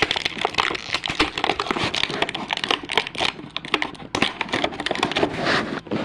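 Plastic toy packaging and small plastic toy parts being handled: a busy run of quick clicks, taps and crinkles as pieces are pulled out of their packing.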